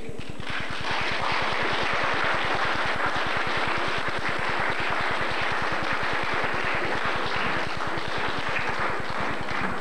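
Audience applauding, starting about half a second in and holding steady, over a low, fast, even pulsing hum.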